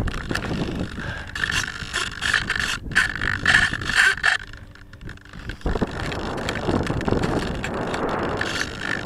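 Handling noise on a model plane's onboard camera microphone: rubbing and knocks as the plane is held. About halfway through this gives way to a steady rush of wind over the microphone as the plane is launched and flies, with its motor not yet spun up.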